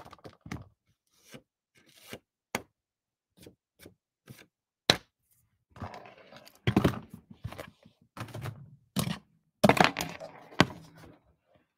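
Cardstock handled over a plastic tray and on a craft table while loose embossing powder is knocked off it: a run of sharp taps and clicks, then scrapes and thumps that come thicker and louder in the second half.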